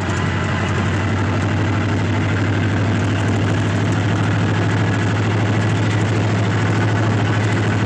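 A vehicle engine idling, a loud, steady low hum with even noise over it.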